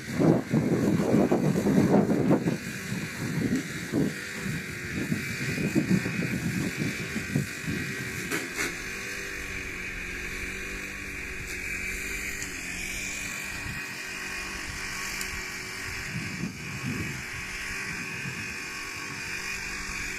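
Diesel railcar rumbling over the rails past the level crossing, loudest in the first two seconds or so, then fading as it moves away. A steady hum and a thin high tone carry on after it.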